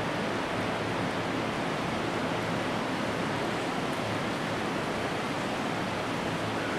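Steady storm noise: wind and rain making a constant, even rushing hiss.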